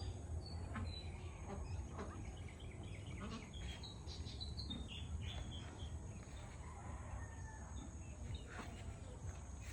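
Farm birds chirping, with many short high chirps scattered throughout over a steady low rumble.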